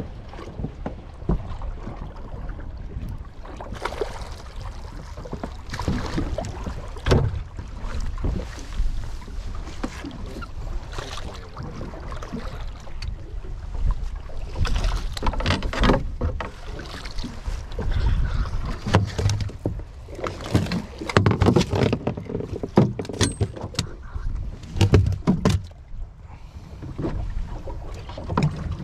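Water slapping against the hull of a small fibreglass boat, with wind on the microphone and a run of splashes and knocks as a red sea bream is scooped up in a landing net and brought aboard onto the deck.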